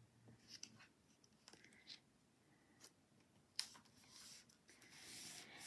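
Faint rustling and rubbing of cardstock under fingers as paper layers are laid together and pressed down, with a sharper tap about three and a half seconds in.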